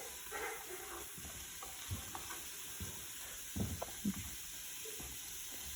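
Chopped vegetables sautéing in a soup pot: a steady sizzle, with a few soft knocks about two, three and a half and four seconds in.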